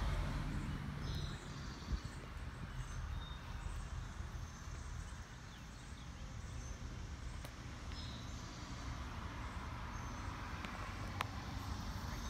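Outdoor background noise: a low steady rumble, louder for the first second or so, with faint high chirps now and then and a faint click near the end.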